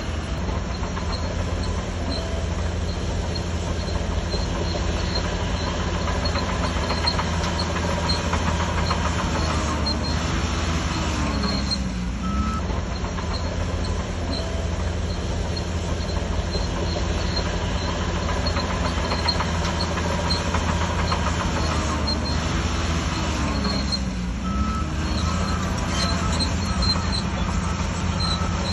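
Shantui DH17C3 crawler bulldozer's diesel engine running steadily under load, with the clatter and squeal of its steel tracks. The engine note shifts a little twice as it works, and a reversing alarm beeps at an even pace near the end.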